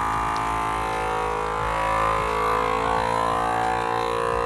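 Countertop electric vacuum sealer's pump running steadily, drawing the air out of a bag.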